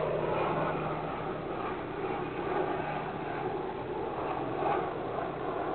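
Steady rushing drone of distant motor vehicle noise, swelling just before the start and then holding, over a low steady hum.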